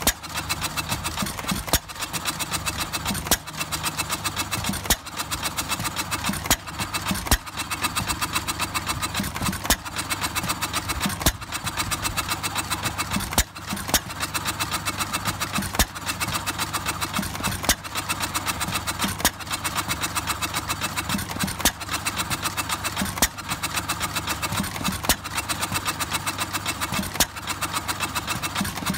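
1925 Cooper single-cylinder stationary engine running, with a loud sharp firing beat every second or two over a fast, light mechanical clatter.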